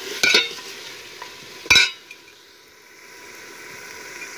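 Metal ladle scraping against a metal degchi as chicken is stirred in hot oil, over the sizzle of frying. Two sharp scrapes, one just after the start and one a little under two seconds in, then a quieter steady sizzle.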